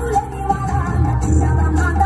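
A Telugu devotional song to Shiva playing for a dance, singing over instrumental backing with a steady heavy bass.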